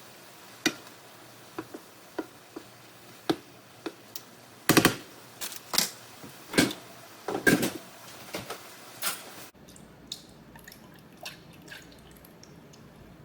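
Kitchen food-preparation sounds: a string of light taps and knocks, with a quick rattle about five seconds in and several louder, ringing knocks after it. Near the ten-second mark the background drops suddenly and only faint clicks follow.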